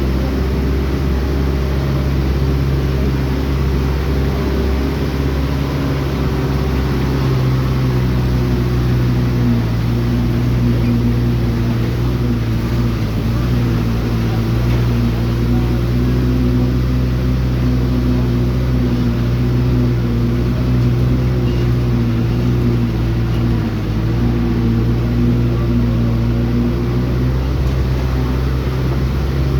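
A vehicle's engine running steadily as it drives: a constant low drone with only slight shifts in pitch.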